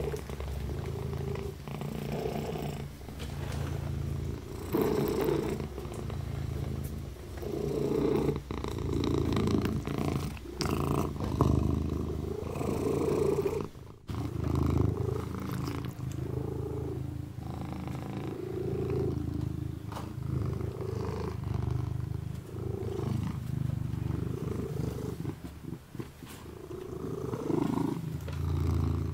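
A kitten purring steadily while it grooms itself, with irregular louder bursts of licking and paw-rubbing noise close by.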